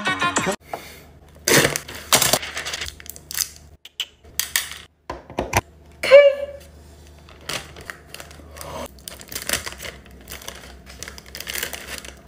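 Scattered clicks, taps and clatters of small hard objects being handled, at uneven intervals, with a brief vocal sound about six seconds in.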